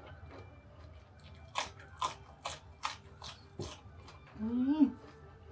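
Close-up crunching and chewing of crispy seafood from a spicy seafood papaya salad, about six sharp crunches in quick succession. About four and a half seconds in there is a short voiced sound rising in pitch from the eater.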